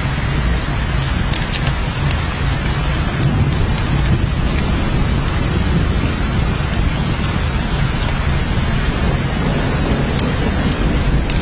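Steady heavy rainfall, an even hiss with a constant deep rumble underneath and scattered sharp ticks of drops striking.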